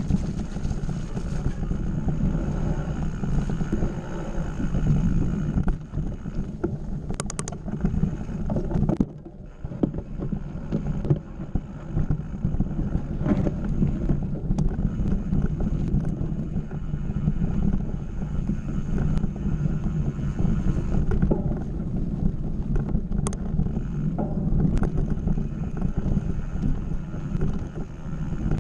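Wind rushing over a mountain bike rider's camera microphone together with the rumble and rattle of the bike rolling fast over a dirt singletrack, with a few short clicks and a brief dip in the noise about nine seconds in.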